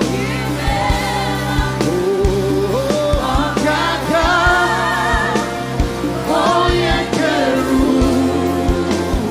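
Gospel music from a band: singers hold long, wavering notes over bass and regular drum hits.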